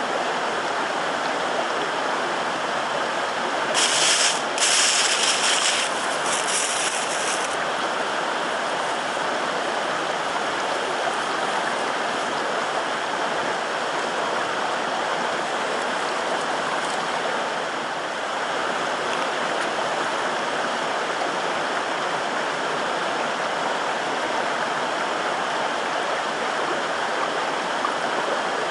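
Steady rushing of a flowing stream. A few short bursts of a louder, higher hiss come about four to seven seconds in.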